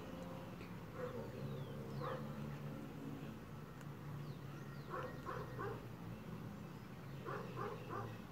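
A dog barking in the background: single barks about one and two seconds in, then a quick run of three barks about five seconds in and four more near the end, over a steady low hum.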